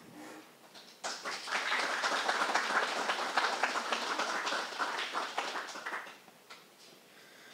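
Audience applauding for about five seconds, starting about a second in and fading out near the end.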